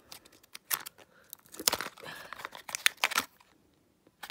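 Mini Racers blind-box packaging being torn open and crinkled by hand, in a few irregular crackling bursts, going quiet shortly before the end.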